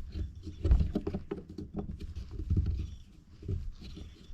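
A block of cedar being twisted by hand onto the lathe's screw chuck: irregular small clicks and scratching of wood against metal, with a few dull thumps.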